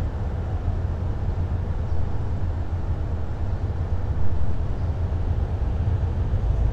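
Diesel locomotive of a passenger express train giving a steady, deep rumble as the train gets under way out of the station.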